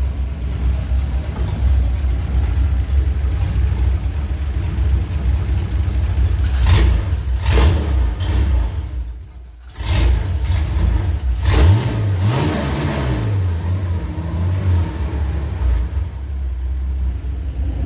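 HR Holden straight-six with X2 twin carburettors running after its install, held at a fast idle and revved up and back down a few times. Its level drops briefly about halfway through.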